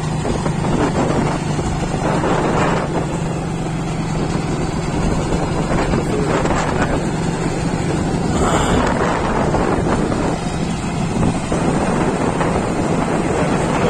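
Small motor vehicle engine running steadily on the move, a constant low hum, with wind buffeting the microphone.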